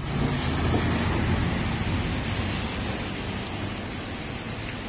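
Steady rain hissing on wet pavement, with the low rumble of a SWEG regional train crossing the railway bridge overhead, fading away over the first two seconds or so.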